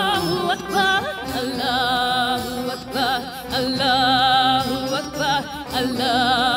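A woman singing long, held notes with a wide, regular vibrato into a microphone, in phrases of a second or two.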